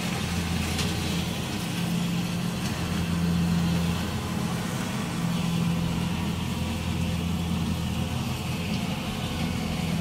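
Kubota DC-60 combine harvester's diesel engine running with a steady hum as the machine harvests rice.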